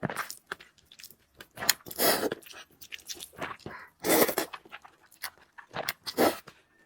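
Close-up eating of spicy noodles: small wet chewing clicks, broken by four loud breathy mouth sounds about two seconds apart.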